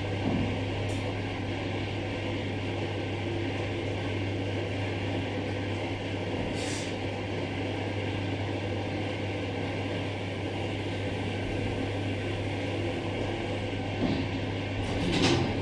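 Steady low hum inside an Otis hydraulic elevator car, with a few short knocks near the end.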